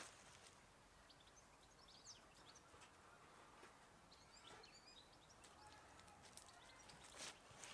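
Near silence, with faint birds chirping now and then and one soft knock near the end.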